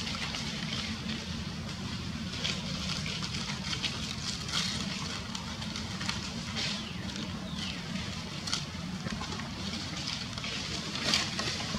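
Dry leaves and wood crackling and rustling as macaques shift and climb around, over a steady low background hum.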